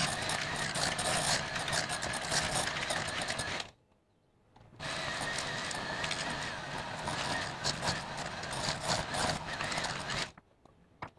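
Electric hand mixer running, its beaters working stiff choux pastry dough in a metal saucepan. It runs in two stretches, stopping for about a second a little under four seconds in and cutting off shortly before the end.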